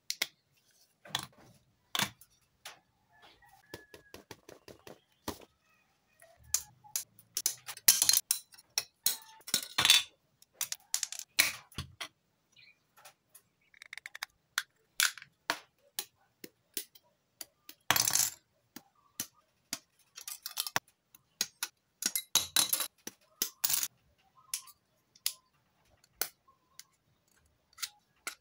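Hard plastic model-kit parts clicking and clattering in the hands as they are pressed and fitted together, in irregular sharp clicks with a few louder bursts of clatter.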